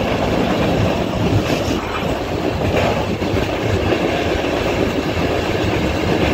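Passenger train running at speed: a steady rumble and rattle of wheels on the rails, with a few faint clicks.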